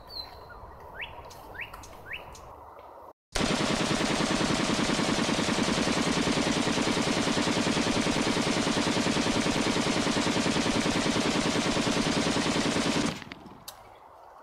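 Automatic rifle fire: one continuous, very rapid burst lasting about ten seconds. It starts abruptly about three seconds in and cuts off suddenly near the end. A few short rising bird chirps come before it.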